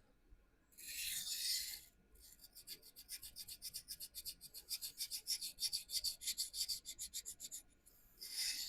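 Knife steel scraping on the 400-grit side of a vitrified diamond sharpening stone during freehand sharpening. There is one long stroke about a second in, then quick short back-and-forth strokes at about five a second, and another long stroke near the end.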